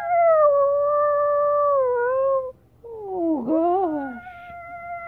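Chihuahua howling: one long howl held at a steady pitch for about two and a half seconds, then a second howl starting about three seconds in, its pitch wavering with overlapping, crossing tones before it settles and is held.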